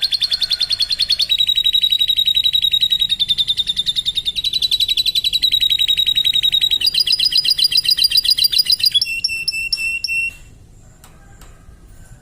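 Canary singing: a continuous song of fast, high trills, switching to a new rolling phrase every second or two. The song stops abruptly about ten seconds in, leaving only faint clicks.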